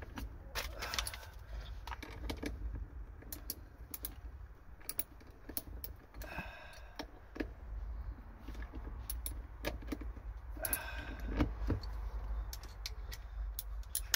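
Metal tools and bolts clinking and knocking while seat belt mounting bolts are undone, with scattered sharp clicks and two short metallic rings about six and eleven seconds in.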